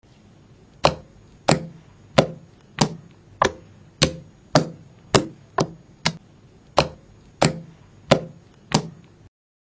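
A hand slapping and pressing a lump of green shampoo slime against a table top: about fourteen sharp smacks, roughly one every two-thirds of a second, slightly uneven.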